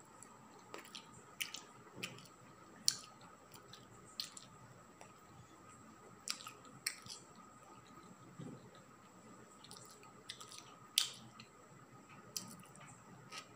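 Faint, irregular sharp clicks and crunches from a kitten crouched over something small on the floor, chewing at it, with two louder clicks about three seconds in and near the end. A faint steady high whine runs underneath.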